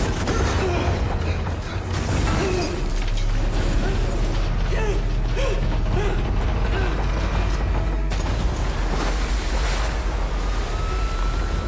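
Earthquake and collapse sound effects from a film soundtrack: a heavy, continuous low rumble with creaking and grinding of a straining concrete structure as a dam gives way. A long, thin high screech comes near the end.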